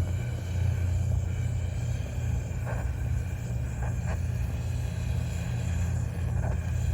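Gas torch flame burning with a steady low rumble as it heats a pan of furnace oil, with a few faint clicks about three, four and six and a half seconds in.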